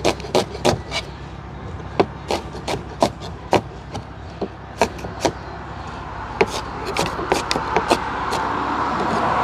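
Knife chopping a red onion on a cutting board: sharp, irregular taps, a few a second with short pauses. A rushing noise swells underneath in the last few seconds.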